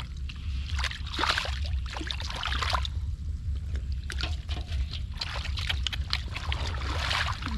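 Hands sloshing and splashing through shallow muddy water while groping for and grabbing fish, in irregular wet splashes, over a steady low rumble.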